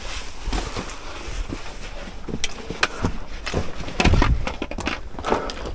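Footsteps on stony ground: irregular crunches and clicks of boots on loose rock, with wind buffeting the microphone.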